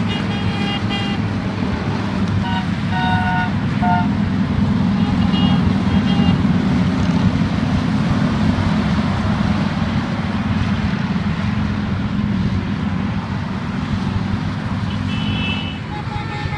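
Motorcycles and cars passing on the highway below, a steady engine and traffic rumble, with a few short horn toots.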